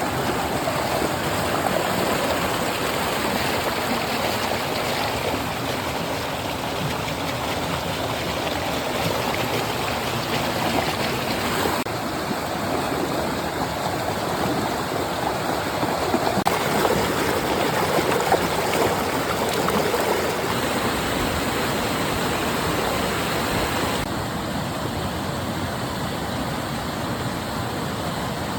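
Flowing stream water rushing and burbling steadily, its character changing abruptly a few times.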